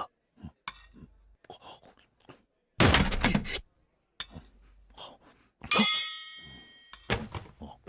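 Cartoon sound effects: a loud thunk about three seconds in as a seated character jumps up from the table, then a bright ringing tone that starts sharply about six seconds in and fades away over about a second.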